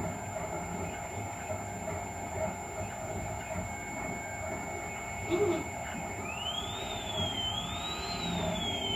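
Anet A8 3D printer running a print: a steady fan hum under the stepper motors' whine. Over the last three seconds the whine rises and falls in pitch twice as the print head slowly speeds up and slows down, because the acceleration is set very low.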